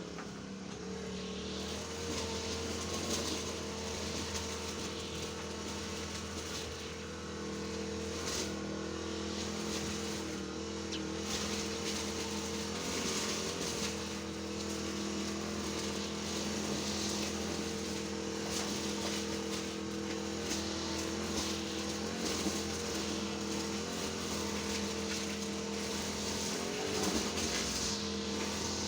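A steady engine-like mechanical drone running without a break, with a slight wavering in pitch about halfway and again near the end.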